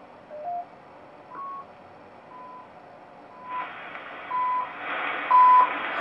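Time-signal station CHU on 7.850 MHz received on a Harris RF-550 shortwave receiver: short beeps once a second, the second ticks, over shortwave band hiss. The first beeps shift in pitch as the receiver is tuned onto frequency, then they settle at one pitch. The hiss rises about halfway through, and the beeps grow louder as the station comes in.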